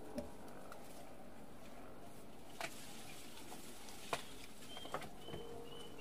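Sharp snaps and clicks of berry branches and twigs being handled as berries are picked by hand, a few seconds apart. Short high bird chirps come in near the end, and a dove starts cooing.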